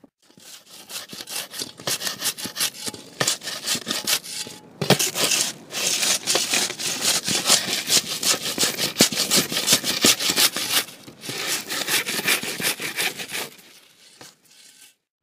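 Rapid, repeated scraping strokes on a hard, rough surface, with a few short breaks, tailing off shortly before the end.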